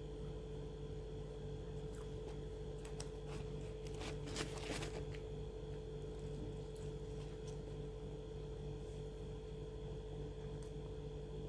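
Steady electrical hum, with a short crackly rustle about four to five seconds in and a few faint clicks as a piece of fried food is handled and torn apart by hand.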